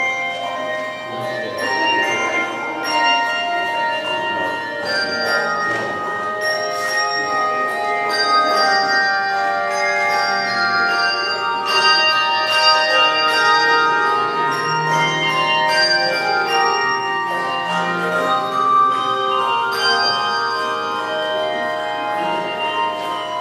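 Handbell choir playing a piece, many struck bells ringing on and overlapping throughout.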